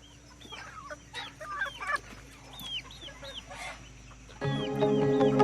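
Gavran (native desi) chickens clucking and calling in short, scattered calls. About four seconds in, music with long held tones comes in and grows louder than the birds.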